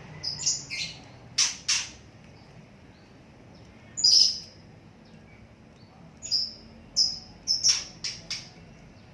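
A small cage bird giving about a dozen sharp, high squawks and chirps at irregular intervals, several of them loud, as it is held while the fatty lump under its skin is being cut open: calls of distress.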